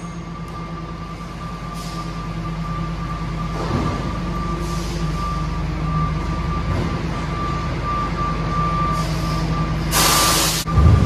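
Rear-loader garbage truck running while its tailgate is raised to tip the load: a steady engine hum with a continuous high-pitched tone over it. About ten seconds in comes a short, loud burst of air hissing, then a low thump.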